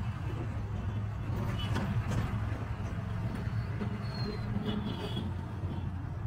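Auto-rickshaw engine running steadily as the tuk tuk drives along a city road, with traffic noise. A few brief, faint high tones come in about two, four and five seconds in.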